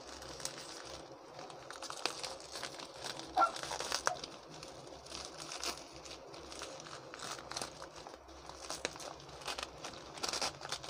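Plastic packaging, a clear plastic bag and bubble wrap, crinkling and rustling irregularly as it is handled and unwrapped by hand.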